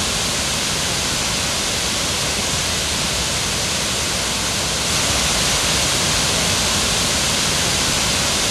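Steady rush of flowing stream water, getting a little louder about five seconds in.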